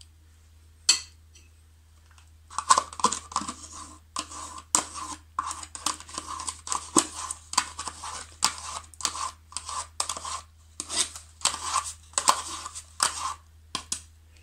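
A metal teaspoon scraping round the inside of a plastic yogurt cup. There is a single click about a second in, then quick scrapes about two a second from about two seconds in until shortly before the end.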